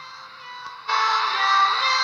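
Music with electronic-sounding sung melody: a quiet, sparse stretch, then the full music cuts back in loudly a little under a second in.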